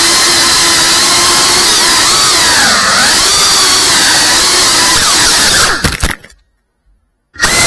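FPV drone's brushless motors and propellers whining, the pitch rising and falling as the throttle changes. The sound cuts out about six seconds in and comes back briefly near the end.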